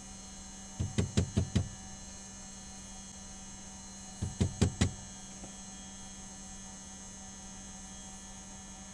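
Fingertip tapping on the cockpit's old analog fuel quantity gauges to free sticking needles: a quick run of about five taps, then about four more a few seconds later. A steady electrical hum runs underneath.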